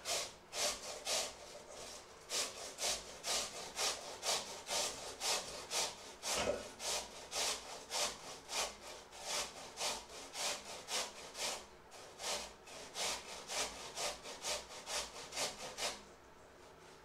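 Hand-held metal box grater rasping food into a metal bowl in quick, even strokes, about two a second. The strokes stop about a second before the end.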